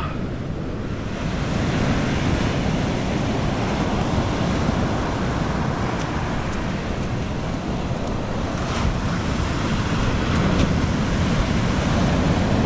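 Surf breaking and washing up a sandy beach, with wind rumbling on the microphone. It grows a little louder about a second and a half in.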